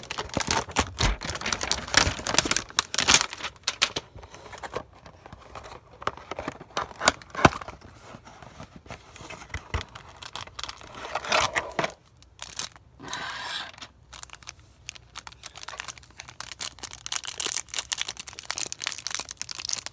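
Cardboard trading-card hanger box being torn open, then the clear plastic wrap around the stack of cards crinkled and ripped: a dense run of crackles and tearing sounds.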